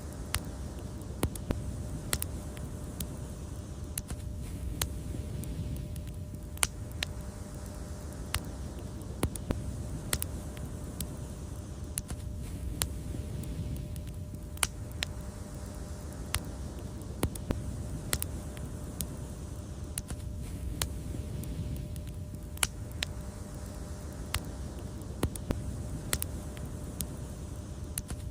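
Wood fire crackling: irregular sharp pops and snaps, one or two a second, over a steady low rumble of the burning fire.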